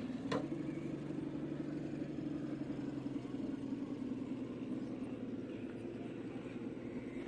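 A motor running at a steady low hum, with a single sharp click about a third of a second in.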